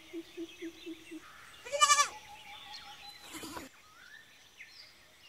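A goat bleating: one loud quavering bleat about two seconds in, then a fainter one about a second and a half later.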